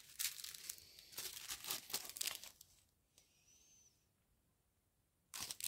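Clear plastic bead packets crinkling as they are handled: a run of crackles over the first two and a half seconds, then another short burst near the end.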